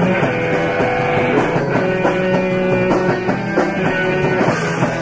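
Home-recorded rock band playing: guitar with held, ringing chords over bass and drums.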